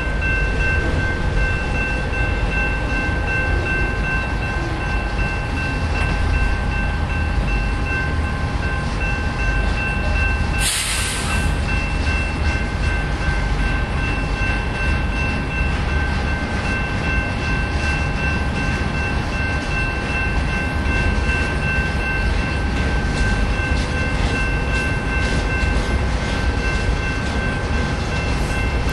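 Intermodal freight train of trailers on flatcars rolling past: a steady rumble of wheels on the rails, with steady high-pitched tones throughout and a brief hiss about eleven seconds in.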